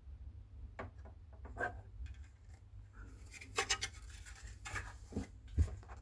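Scattered scraping and rubbing with light clicks from hands handling something, the loudest strokes about three and a half to five seconds in, over a steady low hum.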